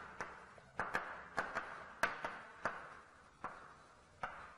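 Chalk writing on a blackboard: about ten sharp, irregular taps of the chalk against the board, each followed by a short scratch of the stroke.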